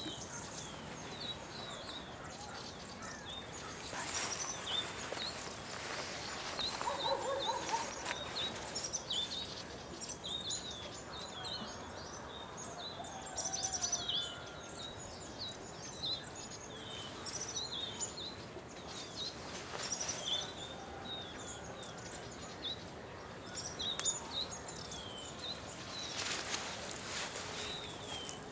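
Himalayan bulbuls (white-cheeked bulbuls) calling: an irregular scatter of short, high chirps, many sliding down in pitch, with a few brief rustling noises.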